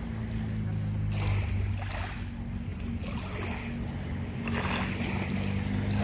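An engine running steadily with a low hum, over small waves washing against the pebbly shore several times.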